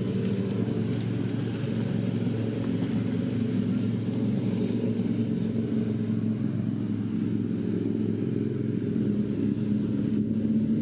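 An engine running steadily with an even, low hum.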